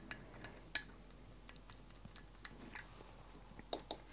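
Faint, scattered small clicks and ticks from tools and a UV resin bottle being handled at a fly-tying vise, with a sharper click near the end.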